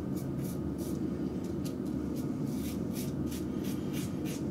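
RazoRock German 37 slant safety razor with a Rapira blade scraping through lather and stubble on the cheek in short strokes, coming faster, about five a second, in the second half. A steady low hum runs underneath.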